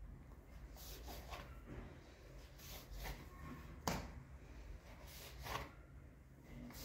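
Faint scraping and soft knocks of a plastic dough scraper on a granite countertop as dough is cut into pieces and set down, with one sharper knock about four seconds in.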